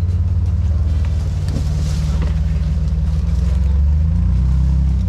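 Engine of an off-road 4x4 running at low revs: a deep, steady rumble.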